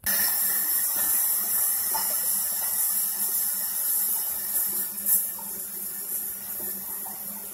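Toilet tank filling as its shut-off valve is opened: water hisses through the fill valve, starting suddenly and then running steadily. The hiss fades a little toward the end, with one brief louder moment about five seconds in.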